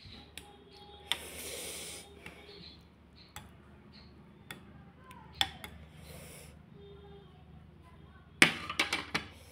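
Steel spoon clinking against a glass bowl as it stirs the pani (spiced water): scattered single clinks, then a quick run of clinks near the end, the loudest of them.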